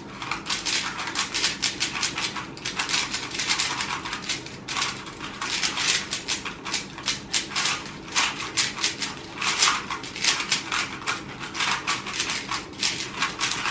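3x3 speed cubes being turned very fast by two people racing: a rapid, continuous clatter of plastic clicks and clacks.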